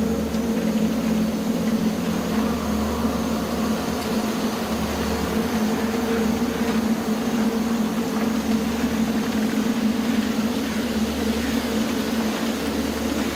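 Steady droning ambience: a low hum with a hiss over it and a deep rumble that swells and drops away every few seconds.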